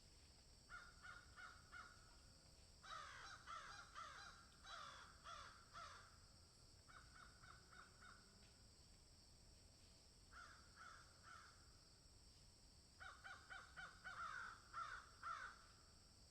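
Several crows cawing in bouts of quick, overlapping caws, five bouts with short pauses between them, over a steady high hiss.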